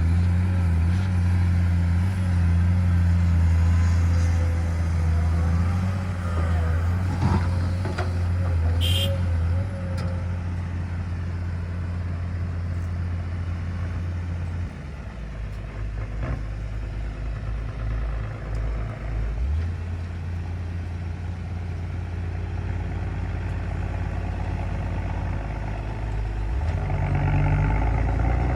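Heavy diesel engine running steadily at a low pitch, dropping back about halfway through and revving up near the end.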